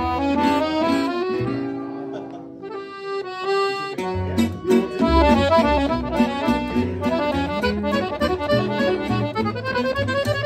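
Piano accordion playing a waltz tune over a plucked upright bass. The bass drops out for a couple of seconds partway through, then comes back in, and the accordion climbs in a rising run near the end.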